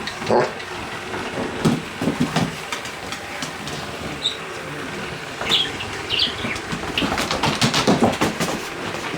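CHUWI ILIFE V7S robot vacuum cleaner running with a steady hiss under irregular clattering knocks, which come thickest about seven to eight and a half seconds in.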